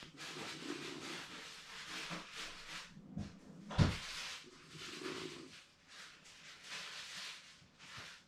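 Shiba Inu snoring in its sleep: slow, noisy breaths with a low nasal hum, about three in all. A short, sharp thump about four seconds in is the loudest sound.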